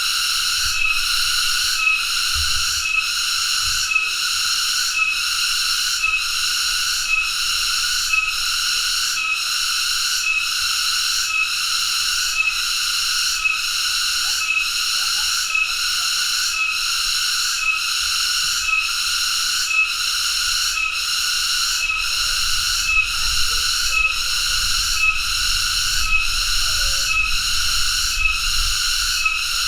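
Cicada (tonggeret) singing: a continuous high-pitched buzz that pulses evenly about twice a second.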